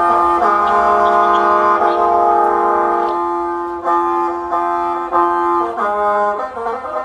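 Khaen, the Lao bamboo free-reed mouth organ, playing in the thang san (short) mode. A loud sustained chord sounds over a continuous drone, and from about four seconds in it gives way to re-struck chords and then quicker changing notes over the same drone.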